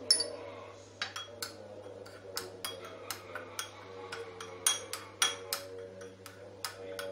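A spoon clinking and scraping against a porcelain plate while mixing ketchup with pepper, salt and spices into a paste. It makes a run of sharp taps, the loudest just at the start with a brief ring, and some come in quick clusters.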